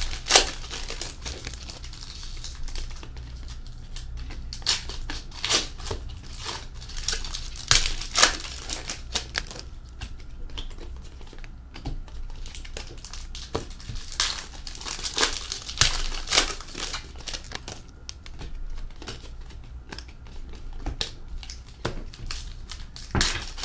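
Hockey trading cards being handled and sorted by hand: irregular sharp clicks and taps as cards are flicked and set down on a tabletop, with some crinkling.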